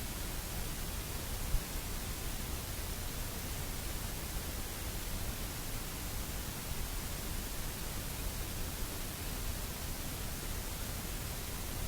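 Steady static hiss, with nothing else heard.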